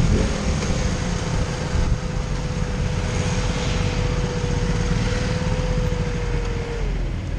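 Motorcycle engine running as the bike slows and pulls up at the roadside, with other motorcycles running nearby. It gives a steady low rumble with a held tone that drops in pitch near the end.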